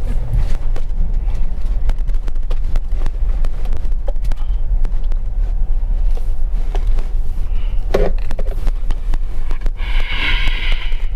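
Car rolling slowly over a broken, potholed, stony road, heard from inside the cabin: a steady low rumble with many small knocks and rattles from the tyres and suspension, and a heavier thump about eight seconds in. A brief higher-pitched sound comes about ten seconds in.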